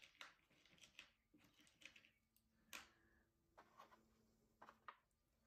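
Faint, irregular small clicks and ticks of glass beads being picked from a plastic compartment tray and set down on a bead design board, over near silence.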